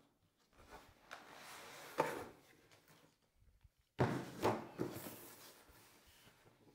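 A padded fabric case scraping and rustling against cardboard as it is pulled out of its box. About four seconds in come several knocks and rustles as it is handled and set on a wooden table.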